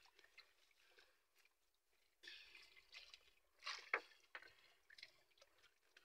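Faint sounds of a wet fishing net being handled: light drips and trickles of water, with a few small clicks and one sharper knock about four seconds in.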